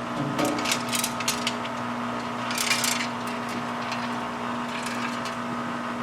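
Small steel spoke nipples clicking and clinking as they are gathered up by hand, with a rattly burst about two and a half seconds in, over a steady low hum.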